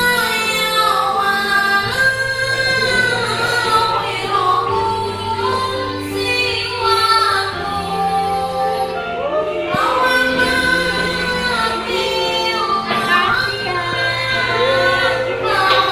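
Background song with a female or child voice singing over a steady instrumental accompaniment.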